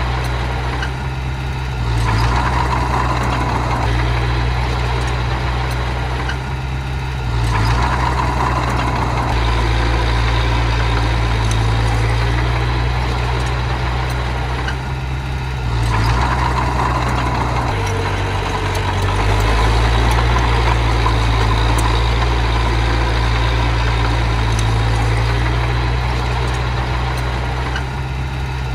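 Diesel engine of small earthmoving machinery running steadily, swelling louder a few times as it works, with a whine coming up during the louder stretches.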